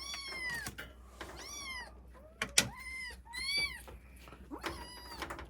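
Kittens meowing: about five short, high-pitched calls, each rising and falling in pitch. A sharp click or knock comes about halfway through.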